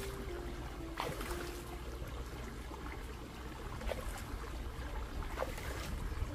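Water trickling and splashing, with a few sharper splashes about one, four and five seconds in.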